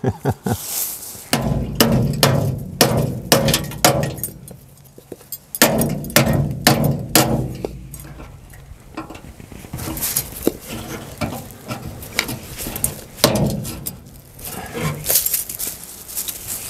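Hammer blows on the rusty sheet-metal lower edge of a 1951 Chevrolet truck's front fender, banging a scraped dent upward for ground clearance. The strikes come in several quick rounds, some with a ringing of the metal after them.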